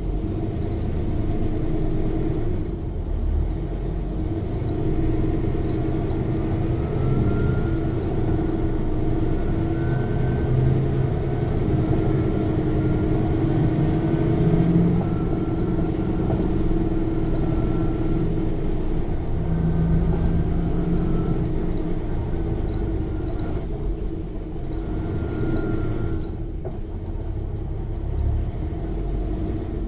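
Inside a 1995 Mercedes-Benz O 405 N1 city bus underway: the loud diesel engine runs steadily, and a thin high whine from the rear axle's differential comes and goes through the middle.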